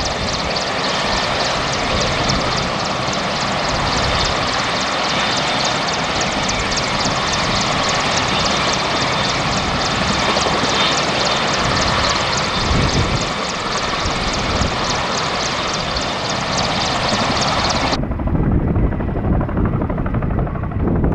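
Boeing Chinook tandem-rotor helicopter with twin turboshaft engines flying close by: a loud, steady mix of turbine whine and rapid rotor-blade chop. About 18 s in, the high end drops away suddenly and a low rumble with wind noise on the microphone takes over.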